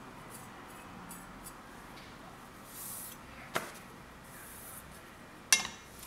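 A light click, then a sharper, louder clack with a brief ring as a steel gyuto blade is laid down flat on an Okudo Suita natural sharpening stone.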